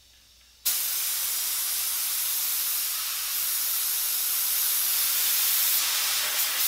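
DeVilbiss SRi Pro HVLP spray gun spraying water. The trigger is pulled just under a second in, giving a steady, loud hiss of air and atomised spray that holds for about six seconds and cuts off sharply when the trigger is released.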